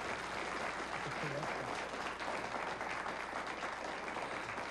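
Studio audience applauding steadily, welcoming the show's guests.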